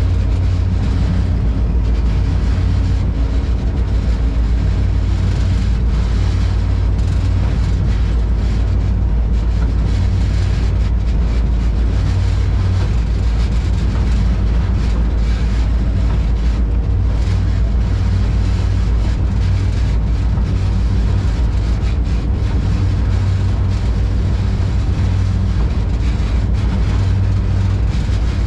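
Moving train heard from on board: a loud, steady low rumble with a constant engine drone.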